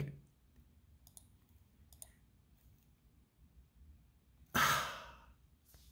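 A few faint clicks of someone clicking on a laptop, then about four and a half seconds in a man's breathy sigh that fades over about half a second.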